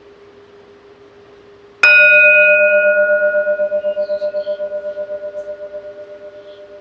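Singing bowl struck once about two seconds in, ringing with several tones and a wavering beat as it slowly fades, over a steady lower tone.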